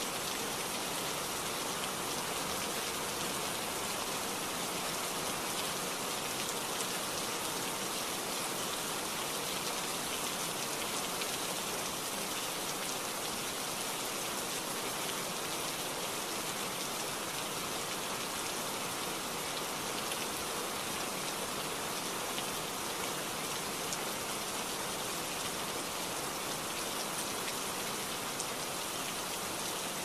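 Steady rain falling: a dense, even hiss that holds at one level, with scattered faint drop ticks.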